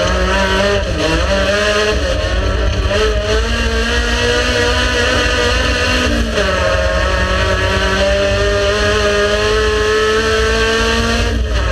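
Race car engine pulling hard under acceleration, its pitch climbing slowly in each gear, with upshifts marked by sharp drops in pitch about six seconds in and near the end.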